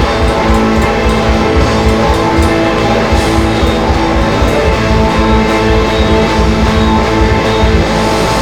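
Rock band playing live: guitar chords held over drums and cymbals.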